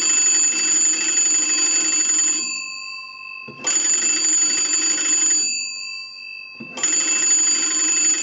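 Western Electric 250W wall telephone's twin gong bells, rung by hand-cranking its magneto: three rapid rings of about two seconds each, the bells ringing on faintly between them.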